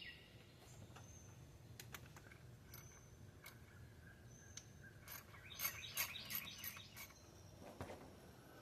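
Quiet work sounds: scattered faint clicks and clinks of hand tools on the engine, bunched together about five to seven seconds in, with faint bird chirps in the background.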